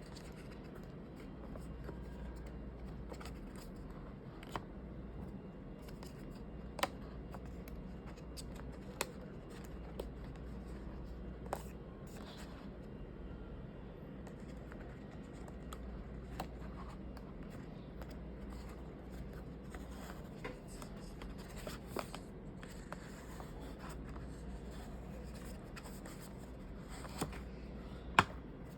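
Watch band packaging being handled and opened: scattered sharp clicks and taps with light scraping and rustling, over a steady low hum. A louder click comes near the end.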